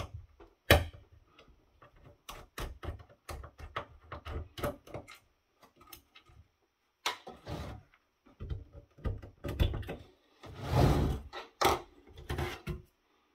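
Scattered clicks and knocks of parts being handled inside an opened network switch's sheet-metal chassis as the power supply board is worked loose, with one longer rubbing noise about eleven seconds in.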